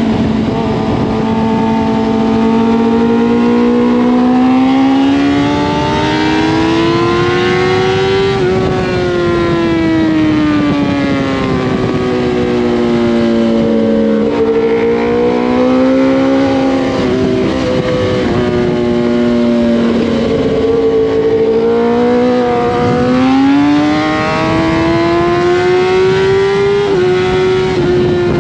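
Kawasaki ZX-10R's inline-four engine heard onboard at track speed, its pitch climbing, falling and stepping with throttle and gear changes, over constant wind rush.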